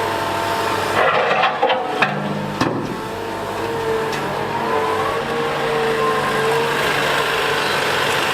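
Liebherr A 910 wheel excavator running, its engine humming steadily under a wavering hydraulic whine, with a cluster of sharp clanks and knocks about one to three seconds in.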